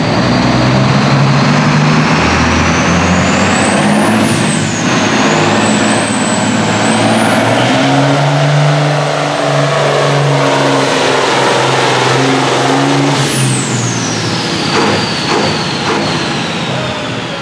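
John Deere farm-stock pulling tractor's diesel engine running hard while hauling a weight-transfer sled, with a high whine that climbs through the first half of the pull and falls away near the end as the engine note drops.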